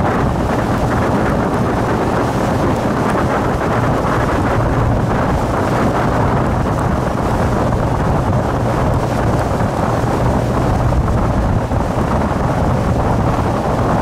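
Fishing boat's engine running steadily underway, a constant low hum, with wind buffeting the microphone and water rushing past the hull.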